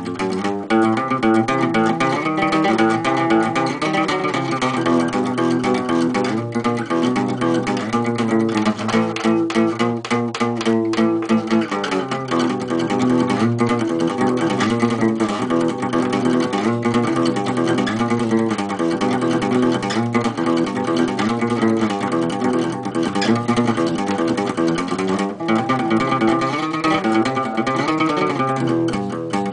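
A guitar being played without words: chords fretted along the neck and picked or strummed, the notes changing every second or so.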